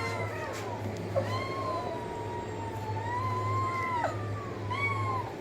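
A cat meowing: a short meow at the start, then one long drawn-out meow from about a second in that lasts about three seconds and drops at its end, and a short meow near the end. A steady low hum runs underneath.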